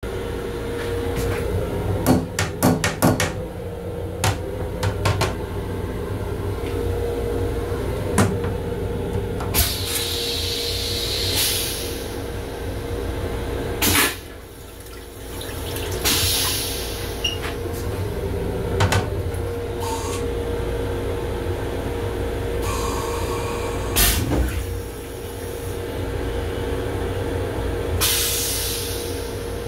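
Flush cycle of a Long Island Rail Road M7 railcar toilet: water sprays into the stainless-steel bowl in several hissing spells, with a cluster of clicks near the start and single knocks from the flush mechanism. A steady hum and low rumble from the railcar run underneath.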